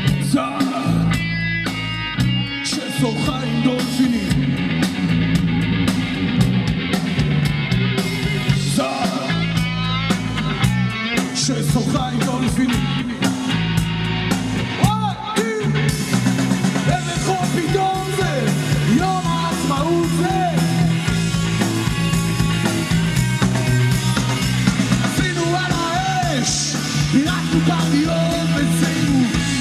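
Live rock band playing an instrumental passage: electric guitar playing a lead line with bending, gliding notes over electric bass and a drum kit.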